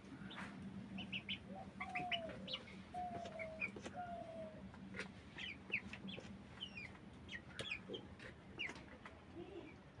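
Broiler chickens calling and clucking, with three drawn-out falling calls in the first half and many short high chirps scattered throughout, over a low steady hum that stops about six seconds in.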